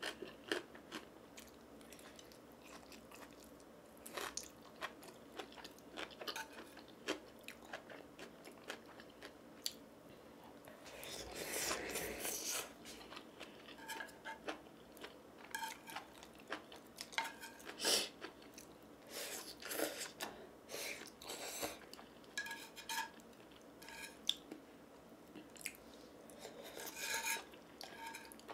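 Close-miked eating: chewing and slurping of noodles, with many small clicks of chopsticks against the bowl and a longer, louder stretch about eleven seconds in.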